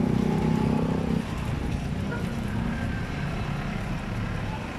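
Street traffic: a vehicle's engine runs close by with a steady tone, which drops away about a second in, leaving the continuous noise of passing traffic.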